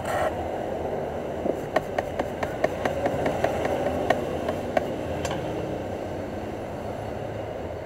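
A brush scrubbing across the internals of an opened iPhone 6 makes a quick run of light clicks and scratches, about four a second, for a few seconds. A steady background rumble runs underneath.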